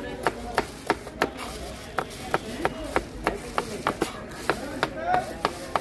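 Knife chopping on a wooden cutting board in a steady, quick rhythm of about three strokes a second.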